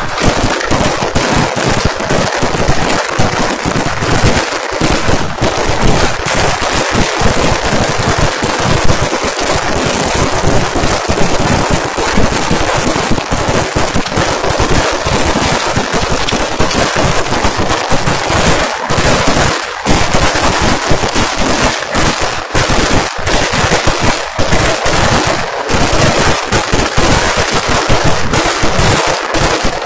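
Vedikettu, a Kerala temple-festival fireworks barrage: a loud, continuous volley of firecracker explosions, the blasts following so fast that they run together without a pause.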